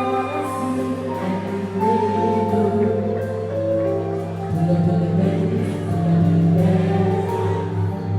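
Music with held bass notes and a melodic line, with some singing.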